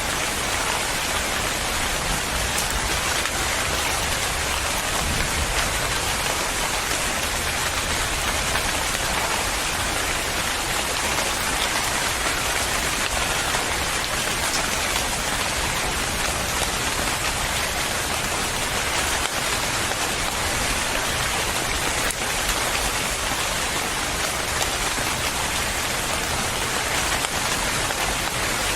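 Steady heavy rain falling on surfaces, an even, constant hiss of many drops.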